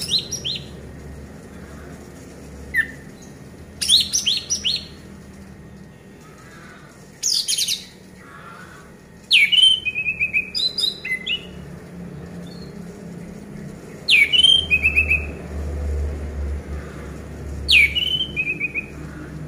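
Orange-headed thrush singing: short phrases every few seconds, each a quick falling whistle followed by a few rapid notes.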